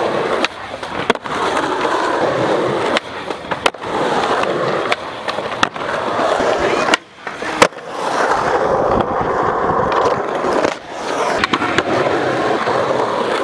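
Skateboard wheels rolling on smooth skatepark concrete, with sharp clacks of boards striking the ground every second or two. The loudest clack comes about seven and a half seconds in, right after a brief lull in the rolling.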